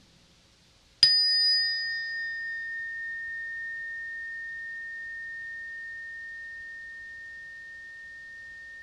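A meditation bell struck once about a second in, ringing with one clear high tone that slowly fades; its brighter overtones die away within a couple of seconds. The bell marks the end of the meditation, the cue to open the eyes.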